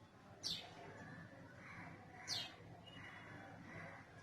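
Faint bird chirps: two short calls, each sweeping quickly downward in pitch, about two seconds apart, over a low steady background.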